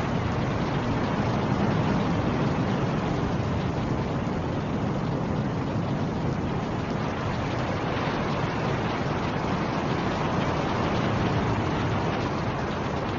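Steady rushing of storm wind, swelling and easing gently, with most of its weight low down.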